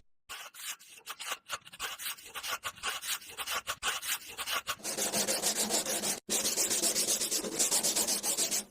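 Quick, repeated rubbing strokes on a small hard surface while building a miniature house, like sanding or scraping. They are light at first, then denser and louder from about five seconds in, with a brief break a second later.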